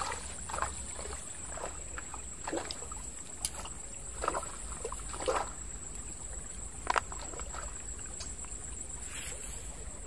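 Shallow water sloshing and splashing in a few small bursts around legs in the water, over a steady high-pitched insect trill.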